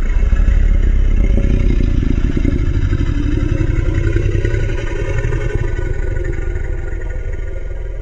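Custom Godzilla roar sound effect: one long, deep, growling monster roar that starts abruptly and slowly weakens, heavy in the bass with a gritty, engine-like texture.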